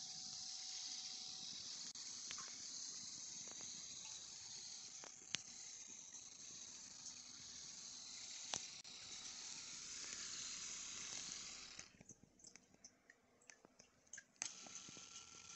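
Donnerberg NM090 shiatsu massager's motor running with a faint, steady whir, its rotating kneading heads giving off an occasional sharp click. About twelve seconds in the running sound stops for two or three seconds, with a few light ticks, then starts again at a slightly higher pitch.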